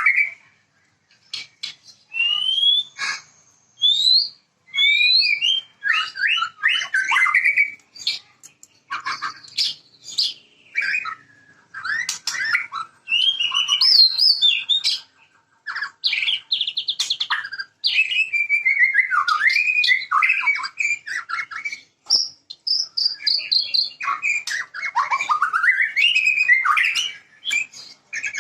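White-rumped shama (murai batu) singing a long, varied song of clear whistles, fast trills, pitch glides and sharp rasping notes, in phrases separated by short pauses.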